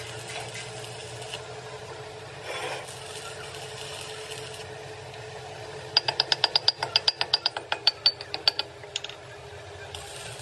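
A steady machine hum. About six seconds in there is a quick run of some twenty sharp, ringing taps on metal, about seven a second, which stops after under three seconds.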